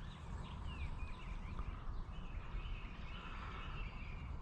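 Faint birds chirping with short, quick rising and falling calls over a steady low outdoor rumble.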